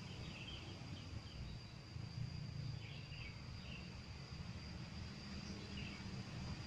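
Outdoor ambience: a steady, high insect drone with a handful of short bird chirps scattered through it, over a low steady rumble.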